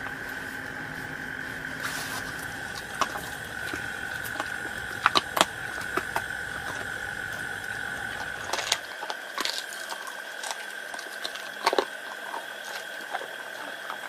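A Labrador eating from a stainless steel bowl: scattered clinks, licks and chewing clicks over a steady high-pitched hum.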